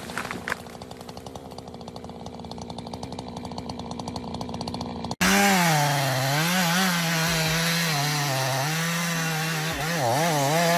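An engine runs with fast, even pulses, slowly getting louder. After an abrupt cut about five seconds in, a chainsaw runs loud, its pitch dipping and rising repeatedly as the load on it changes.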